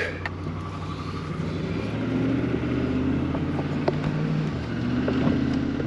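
Car engine running steadily at low revs, with a few light clicks and knocks.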